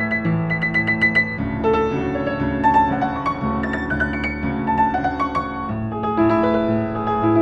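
1960s upright piano being played: a melody of single notes over held bass chords, with a quick run of repeated high notes about a second in.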